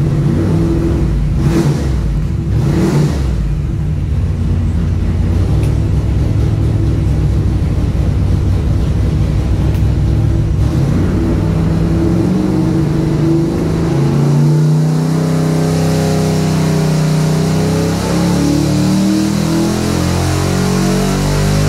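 V engine running on an engine dynamometer, held at a steady speed at first and then, from about halfway through, revving up steadily under load in a dyno pull to around 5,000 rpm.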